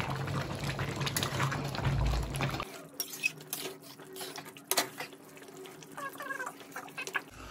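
Metal spatula stirring chicken curry in a steel kadhai, with clinks and scrapes against the pan and a sharp knock near the middle. The curry is simmering under the stirring. A steady background noise stops about two and a half seconds in.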